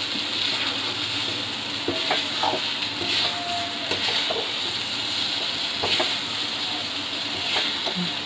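Thick semolina halwa sizzling in ghee in a metal kadai while a metal spatula stirs and scrapes it, with a few light clicks of the spatula against the pan. The halwa has thickened and is nearly done.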